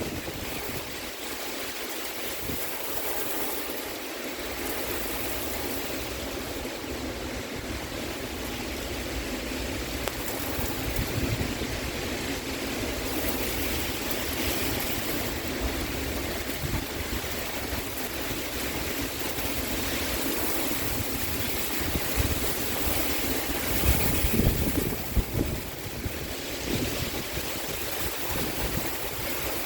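Heavy rain pouring down in a violent storm, a steady hiss, with strong wind gusts buffeting the microphone, the gusts loudest about three-quarters of the way through.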